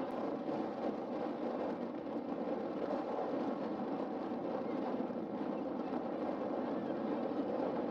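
Steady seaside ambience: a continuous rush of breaking surf and wind, with no distinct events.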